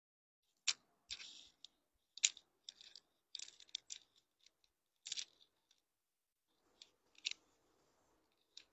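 Folded clothes being handled and shifted on a shelf: faint, crisp rustles and small clicks in short irregular bursts.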